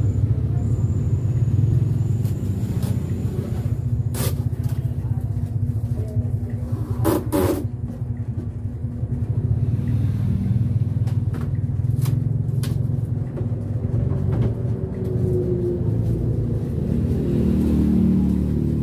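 A steady low rumble, with a few sharp knocks and clicks about four and seven seconds in and another around twelve seconds.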